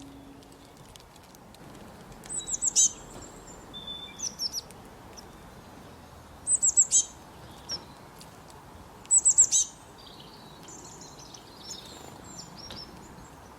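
A songbird singing: three loud bursts of quick, high, downward-slurred notes a few seconds apart, with softer chirps in between.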